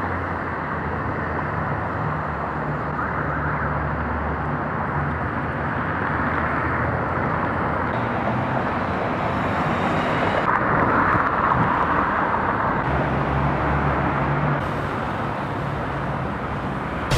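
Street traffic noise: a steady rush of passing vehicles, with a low engine rumble that drops out and comes back a few times.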